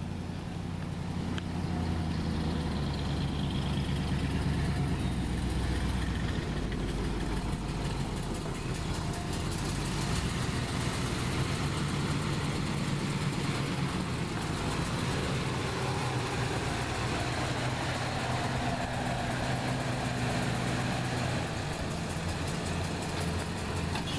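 A 1976 Jeep J10 Honcho pickup's engine running steadily at low revs, a continuous low hum with small shifts in pitch.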